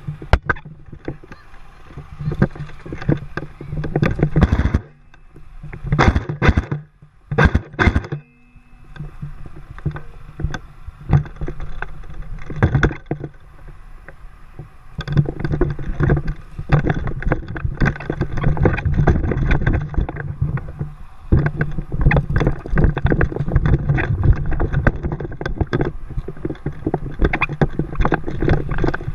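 Dense rustling and knocking with many sharp clicks, typical of a player's gear and footsteps heard up close while moving during an airsoft game.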